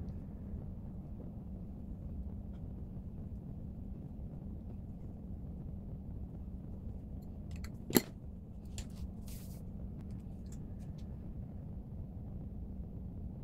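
Steady low room hum, with one sharp click about eight seconds in, then a few lighter clicks and a brief hiss as make-up tools and a compact are handled.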